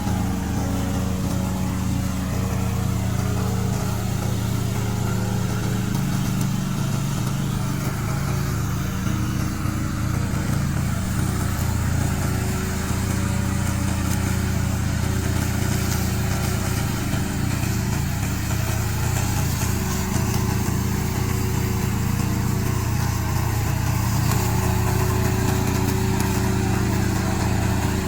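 Remote-controlled brush mower's engine running steadily at a constant speed.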